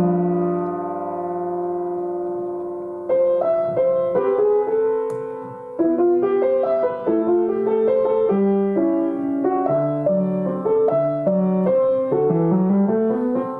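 Solo piano music: a held chord fades over the first few seconds, then a gentle melody of single struck notes moves up and down.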